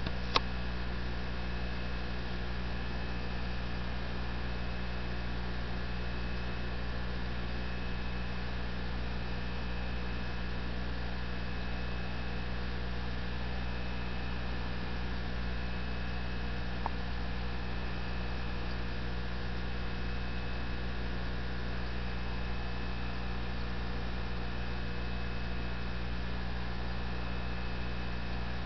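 Steady electrical mains hum, a low buzz made of several constant tones that never changes. A single sharp click comes just after the start.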